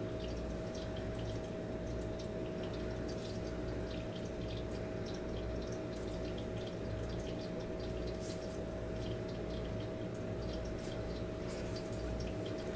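Steady background hum with one constant faint tone and a low pulsing rumble, with a few faint soft ticks and rustles from a sneaker being handled.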